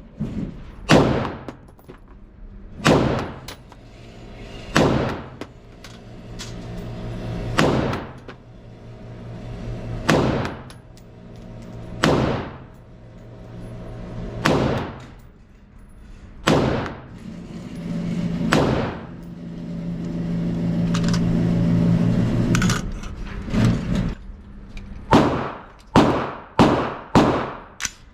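AR-15-pattern rifle firing single shots, each a sharp crack with a ringing tail, about one every two seconds, then a quicker string of five or six near the end. A steady droning hum swells and fades in the middle, between shots.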